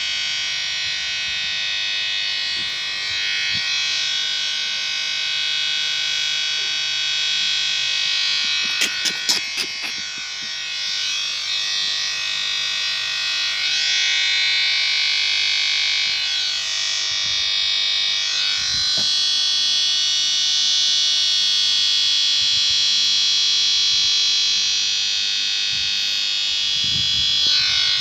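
A sharp fart sound effect digitally distorted and layered into a continuous harsh electronic buzz, with slow sweeping swirls through it and a brief cluster of clicks about nine seconds in.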